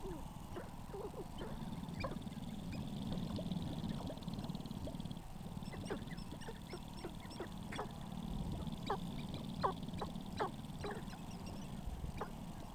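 Sharp-tailed grouse calling on a lek: many short, sharp clucks and chirps, scattered at first and coming thicker in the second half, over a steady low rumble.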